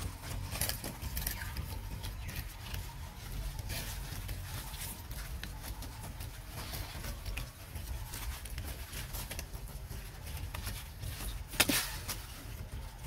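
Dry fallen leaves rustling and crackling as long-tailed macaques walk over them and pick through them, in scattered short crackles with a sharper one near the end, over a steady low rumble.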